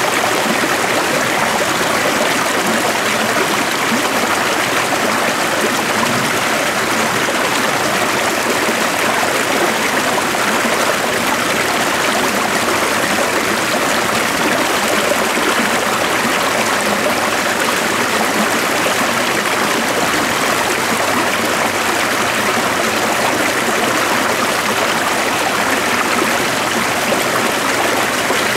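A stream flowing steadily: an even, unbroken rush of running water with little low rumble.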